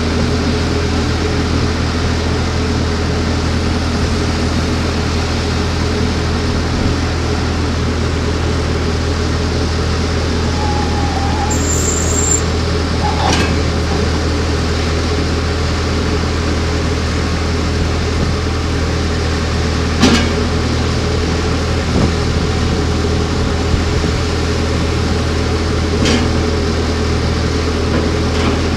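JCB 541-70 Agri telehandler's diesel engine idling steadily with a constant low hum, broken by a few short sharp clicks or knocks.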